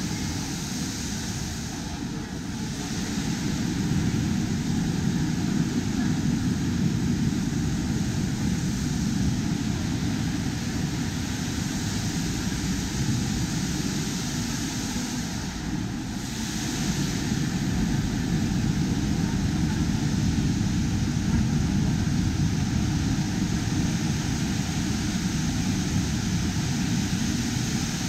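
Steady low rumbling noise with no distinct events, swelling slightly about four seconds in and again a little past the middle.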